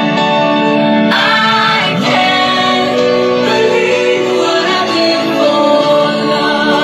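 A song with a singing voice played loud through a car audio install of Chess Audio 10-inch midrange speakers and tweeters mounted in the boot.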